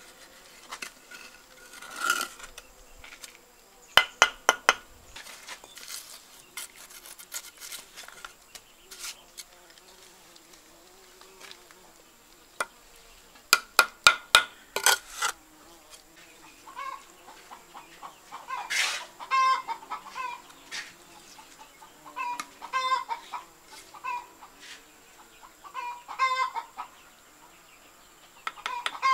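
A brick trowel tapping freshly laid bricks down into wet mortar, in two quick runs of sharp knocks. Chickens cluck repeatedly through the second half.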